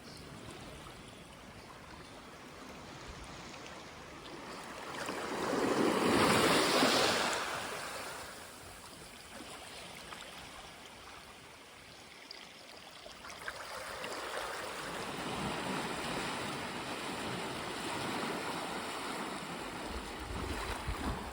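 Small waves washing up a sandy beach: one wash swells and fades about six to eight seconds in, and another comes in about halfway and keeps hissing over the sand.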